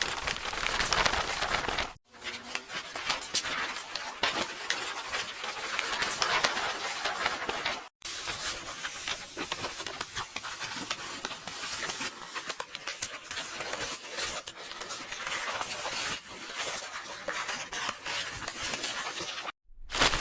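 Paper pages rustling and crackling, a dense run of fine crinkles, broken off by brief gaps about two and eight seconds in and again near the end.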